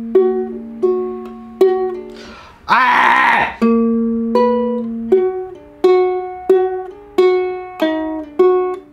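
Fender ukulele played by a beginner, strumming single chords slowly and steadily, about one and a half a second, each ringing out and fading before the next. About three seconds in, one strum comes out harsher and noisier than the rest.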